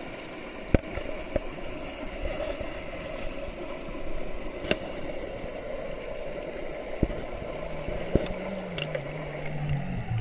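Shallow mountain stream running steadily over stones, with a few sharp clicks and knocks from handling. A low hum comes in near the end.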